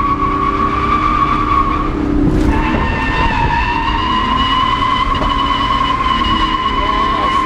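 Car tyres squealing through a sustained drift: a steady, high-pitched squeal over engine noise. It breaks off briefly about two seconds in and comes back slightly lower.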